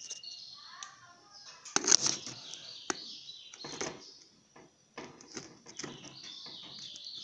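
A handheld phone being moved about: rustling and several sharp knocks, the loudest about two seconds in, over continuous high-pitched chirping.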